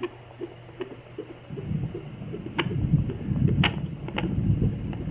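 Fetal Doppler speaker giving a fetal heartbeat as quick regular whooshing pulses, about two and a half a second. About a second and a half in, a louder low rumbling whoosh from the probe's speaker swamps the beat.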